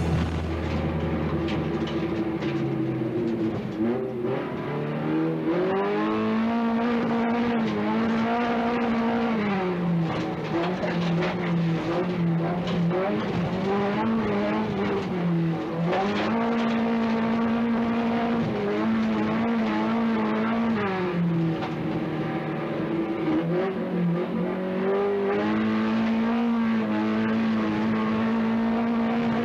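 Rallycross car engine running hard, its note climbing, holding and dropping again every few seconds as the car accelerates and slows through the course.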